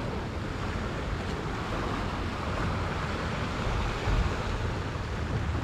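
Sea surf washing against a rocky shore, a steady rushing noise with wind buffeting the microphone and a brief louder low rush about four seconds in.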